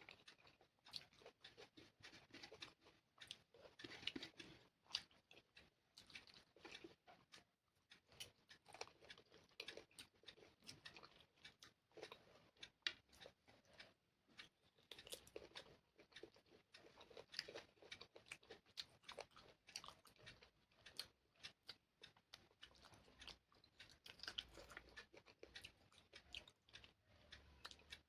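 Quiet close-up eating sounds: a person chewing and biting into chicken curry with rice, a run of irregular wet mouth clicks and small crunches, pausing briefly twice.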